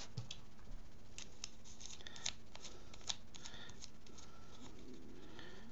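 Faint, scattered light clicks and small rattles of a GoPro's plastic housing being handled and bolted onto a gimbal's camera mount by hand.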